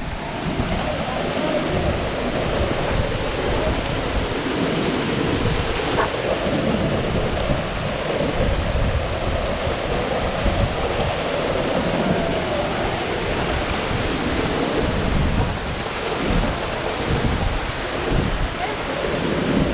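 Steady rushing noise with wind buffeting the microphone in uneven low gusts.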